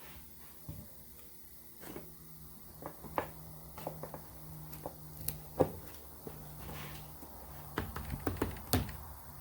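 Scattered clicks and knocks of parts being handled, with the sharpest knocks about five and a half seconds in and near the end, over a steady low hum.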